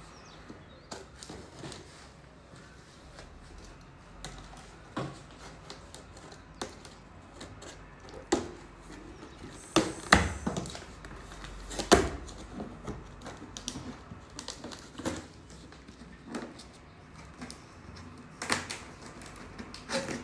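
Box cutter slicing packing tape along the seams of a large cardboard carton, with scattered knocks and scrapes of the cardboard being handled. The loudest thumps come about ten and twelve seconds in.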